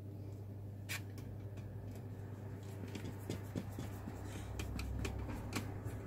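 Small clicks and light scraping of hands and a small metal tool working on laptop parts, one sharp click about a second in and a busier run of clicks in the second half, over a steady low hum.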